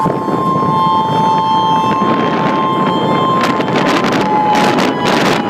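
Outdoor civil-defense siren sounding the tsunami warning as a steady two-tone blast; the higher tone drops out about three and a half seconds in. It is heard from a moving car, with road rumble and wind buffeting the microphone.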